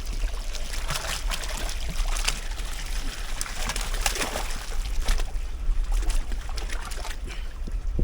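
Water splashing and dribbling in many small, irregular splashes over a steady low rumble.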